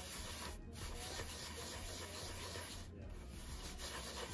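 A palm rolling a piece of bread dough into a ball on a floured wooden board, a soft rubbing against the wood.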